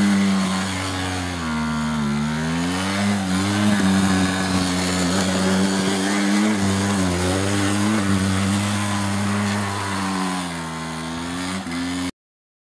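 Keeway 50 cc ATV engine running, its revs dropping and picking back up several times as the throttle is eased and opened again. The sound cuts off suddenly near the end.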